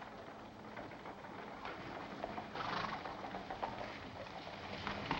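Horse hoofbeats, a quick run of hoof strikes growing steadily louder.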